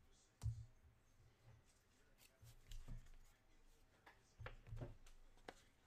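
Near silence: room tone with a few faint, short clicks and soft handling noises scattered through it.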